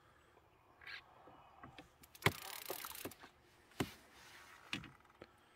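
Handling knocks from fishing tackle and boat while a fish is played on a hard-bent rod. A loud knock about two seconds in is followed by a second of hiss, then two more knocks.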